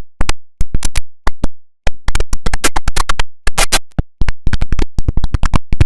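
IBM OS/2 Warp 3 shutdown sound mangled by audio effects into a glitchy stutter. It is many very short, sharp fragments, several a second, fired at uneven spacing with brief silent gaps, and it sounds like a scratched, chopped synthesizer.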